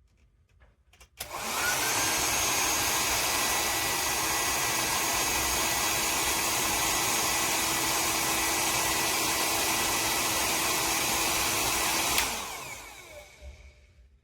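Amurhey 2400 W ionic hair dryer switched on about a second in, blowing steadily with a whine over the rushing air. It is switched off near the end and the fan spins down over about two seconds.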